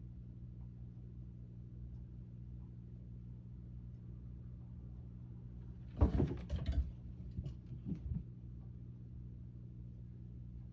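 Two cats play-fighting: a burst of thumps and scuffling about six seconds in, lasting about two seconds, with a few lighter knocks after it, over a steady low hum.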